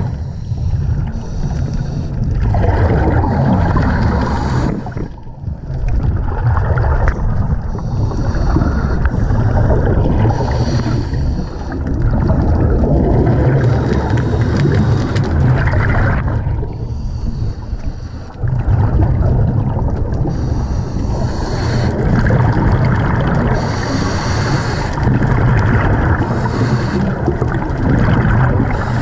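Scuba regulator breathing underwater: short hissing inhalations every few seconds, alternating with a rumbling, gurgling rush of exhaled bubbles.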